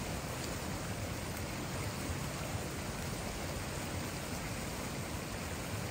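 Steady rushing of a stream's flowing water, an even wash of noise with no breaks.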